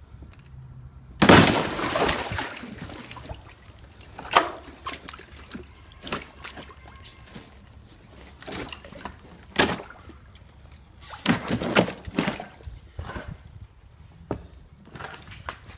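Thin ice over shallow water being broken: a loud crash with a splashing, shattering tail about a second in, then a string of separate sharp cracks and crunches, several close together a few seconds before the end.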